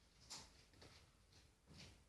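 Near silence, with two faint soft scuffs, about a third of a second in and again near the end: a kitten's paws and a soft toy mouse on a wooden floor.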